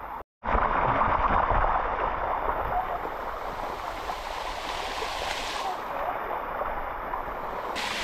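Water rushing steadily down a shallow waterfall cascade, a little louder for the first second or so.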